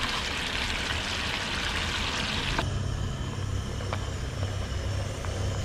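Whole fish shallow-frying in oil in a pan, sizzling with a steady hiss. About two and a half seconds in, the sizzle cuts off suddenly and a steady low hum with a few faint ticks takes over.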